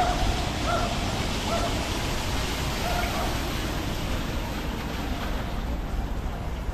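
Wind rushing over the microphone: a steady noisy hiss with a fluctuating low rumble.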